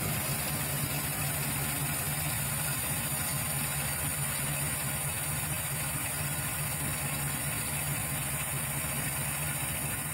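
Ford 460 (7.5-litre) V8 with a four-barrel carburettor idling steadily, running with its newly installed timing chain.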